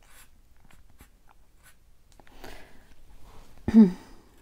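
Felt tip of a Sharpie marker scratching lightly on paper in short strokes as skin-tone shading is coloured in. A brief voiced sound comes from the person colouring a little before the end.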